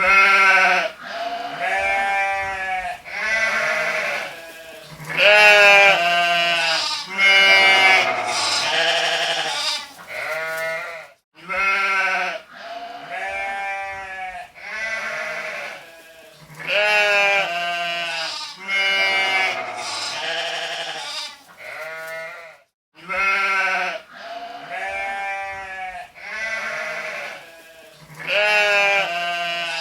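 Sheep bleating over and over: quavering baas about a second long, one after another with short gaps.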